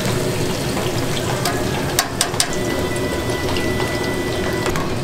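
Hot oil in a commercial deep fryer sizzling steadily as battered pork pieces fry and are lifted out dripping, with a few sharp clicks about two seconds in.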